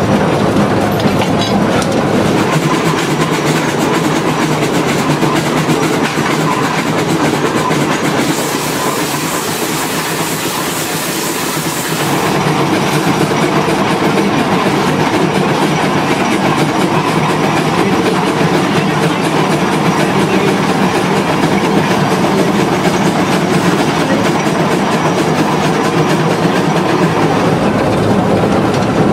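Climax geared steam locomotive running under way, its machinery and wheels on the rails making a steady clatter, with a stretch of stronger hiss about a third of the way through.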